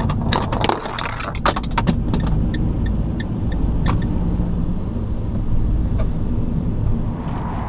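Car engine and road rumble heard from inside the cabin while driving through a roundabout, with a run of sharp clicks in the first couple of seconds and a faint, regular ticking.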